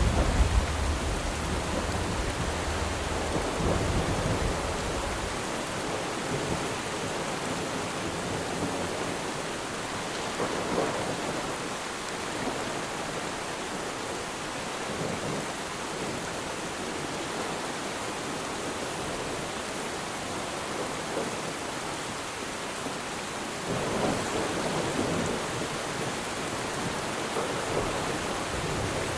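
Steady rain falling on water, with a low rumble of distant thunder that dies away about five seconds in. Near the end the rain briefly grows louder.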